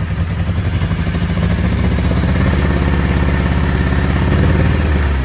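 Off-road buggy engine running hard at a steady pitch. It swells louder about two seconds in, holds near its peak, then drops back at the very end.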